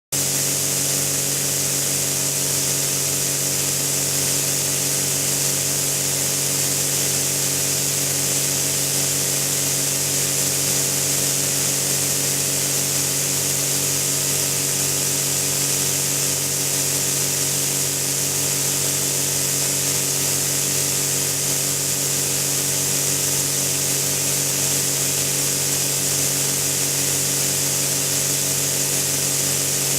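Snowmaking nozzle (snow gun) spraying: a steady hiss of air and water, with a steady low hum underneath. It is running on too little air pressure from the compressor.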